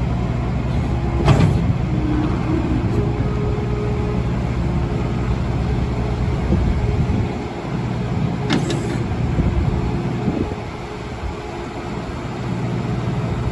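Case TV380 compact track loader's 90 HP FPT diesel engine running, its steady hum rising and falling a few times, with two sharp clanks, about a second in and about nine seconds in.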